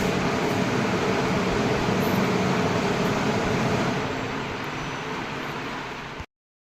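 Kitchen chimney (range hood) exhaust fan running steadily, a motor hum under a rush of air, just after being switched on at the wall. It drops a little in level about four seconds in and cuts out abruptly near the end.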